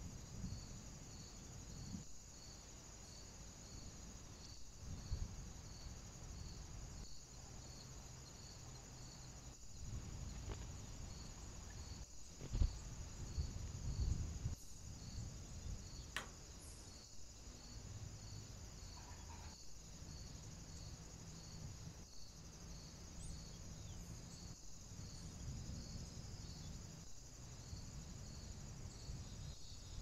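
Steady high-pitched insect trill, pulsing about twice a second, over a low rumbling background, with a few dull knocks near the middle.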